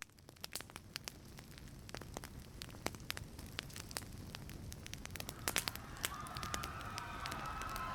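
Fire crackling: a crackling-fire sound effect with irregular sharp pops over a low rumble, slowly growing louder. About six seconds in, a high wavering tone enters over it.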